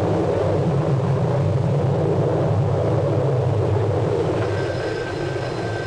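Tornado roar on the film's soundtrack: a loud, steady, rumbling wind noise. It eases slightly near the end, where faint thin steady tones join it.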